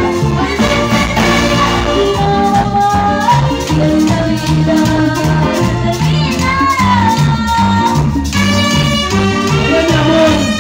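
A live brass band playing Latin dance music loudly, with a steady bass beat and shaker percussion under a woman's singing voice. The horns come in strongly about eight seconds in.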